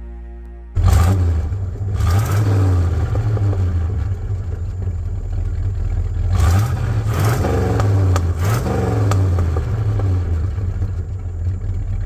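Ford bullnose F-series pickup's engine running with a low, steady rumble, revved up several times in quick blips of the throttle.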